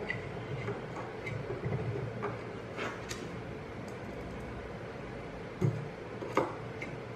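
Small metal clicks and taps as a screwdriver and a small screw touch the high-power LED's metal mounting plate and heatsink while the screw is set into a mounting hole. Two sharper clicks come near the end.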